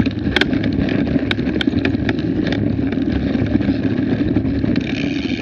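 Wind buffeting an action camera's microphone over the rumble of a mountain bike rolling fast along a dirt trail, with scattered sharp clicks and rattles. A higher, steady hum joins near the end.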